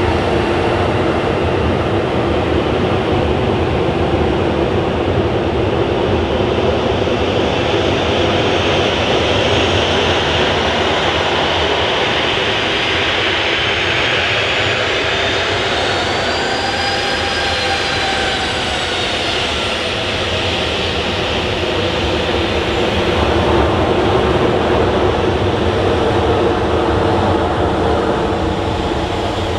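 Jet engines of a Boeing 737 running at high power as the airliner moves past, a steady loud rumble and hiss with a whine that rises and then falls about halfway through.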